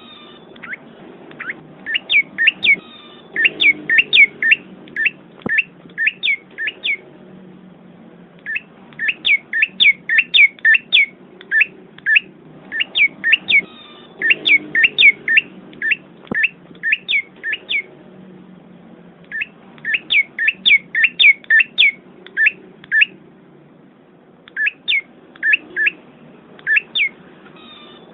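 A small bird chirping: quick series of sharp, falling chirps, several a second, in bursts of a few seconds separated by short pauses.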